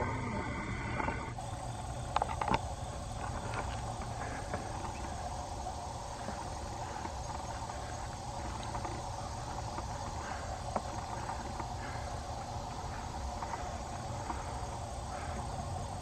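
Steady outdoor ambience: a continuous insect-like drone over a low rumble, with a few faint clicks. A tonal sound with a falling low pitch stops about a second in.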